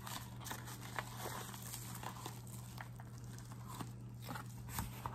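Cardboard box and plastic packaging being handled and opened: rustling and crinkling with scattered light clicks and scrapes as the nail drill handpiece and its cord are pulled out, over a steady low hum.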